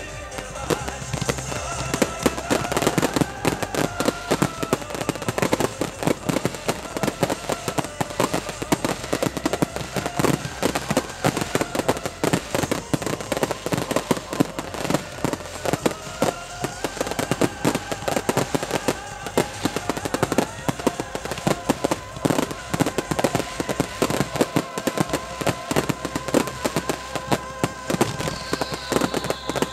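A starmine, the Japanese rapid-fire fireworks barrage, fired at close range of about 50 m: a dense, rapid run of shell bursts and bangs, with each blast and its bloom heard almost together. Near the end comes a falling whistle.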